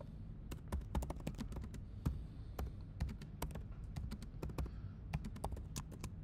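Typing on a computer keyboard: a quick, uneven run of key clicks, several a second.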